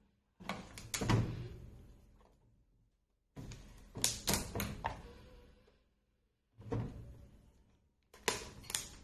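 Four short bursts of knocks and clattering thuds, each dying away, from objects being handled.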